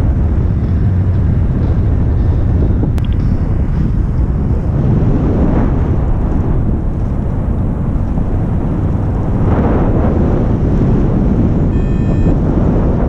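Airflow rushing over the microphone of a paraglider in flight: steady, loud low buffeting that swells twice, about five and a half and nine and a half seconds in.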